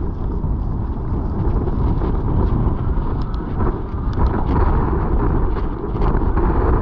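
Strong wind buffeting the microphone during a mountain bike ride, a dense, steady low rumble, with a scatter of small clicks and rattles from about halfway through.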